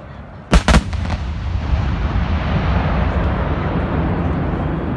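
Aerial fireworks shells bursting: two sharp bangs in quick succession about half a second in, a smaller one just after, then a steady rushing noise with a low rumble.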